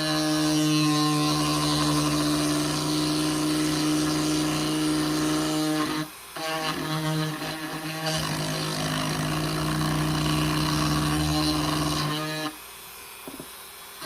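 Power tool running steadily at constant speed, cutting out for a moment about six seconds in, then starting again and stopping about twelve and a half seconds in.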